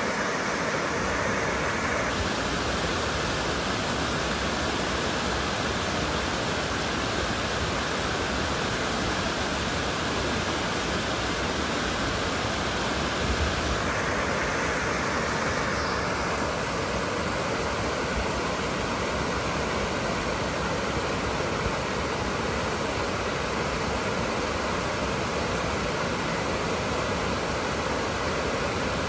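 Creek water pouring over a low rocky cascade at a heavy flow: a steady, even rush of falling water.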